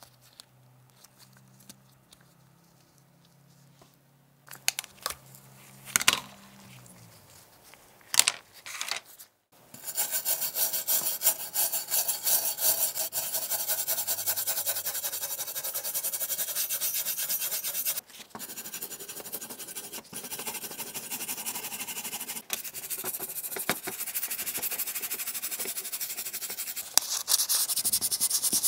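Stiff brush scrubbing the rusty metal body shell of a 1:18 scale model car: fast, continuous scratchy rubbing that starts about a third of the way in, with a brief pause midway and a brighter, harsher rub near the end. Before it there are only a few light clicks of small parts being handled.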